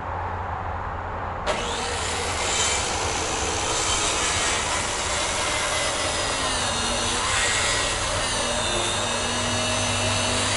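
A handheld power tool running and cutting into the wooden floor joists with a steady rasping whirr, taking down high spots to level the subfloor frame.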